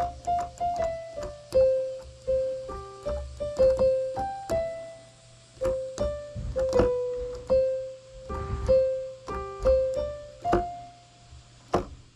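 Casio LK-520 electronic keyboard in a piano voice playing a simple melody one note at a time, at an uneven beginner's pace with some hesitating pauses. The last note sounds near the end, and low thuds come under many of the notes.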